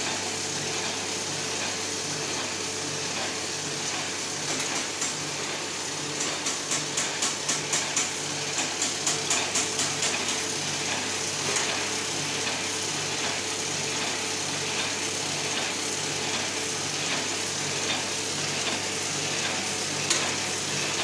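Ryobi 3300CR offset printing press with a numbering unit running: a steady mechanical whir with a regular beat about twice a second. For several seconds in the first half a fast run of sharp clicks, about three a second, sounds over it.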